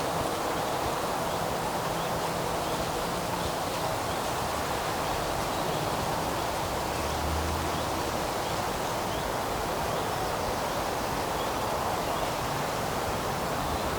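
Steady outdoor ambience of wind rustling through the trees, an even hiss at a constant level.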